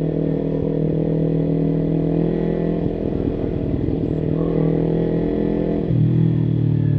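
Kawasaki Ninja 300's parallel-twin engine running steadily as the bike rides at low speed. About six seconds in, the engine note drops to a lower, louder one.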